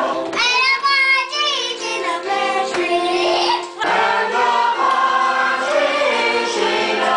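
Music: a choir of voices singing a Christmas song.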